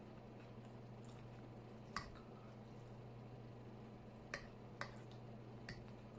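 A person eating fries with a fork: quiet chewing and mouth sounds, broken by four short sharp clicks, the loudest about two seconds in, over a low steady hum.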